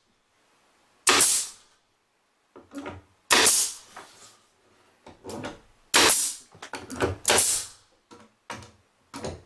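A power stapler firing blind staples into an oak face board: about half a dozen sharp shots a second or two apart, with quieter clicks and knocks between them as the board is held and the tool is moved.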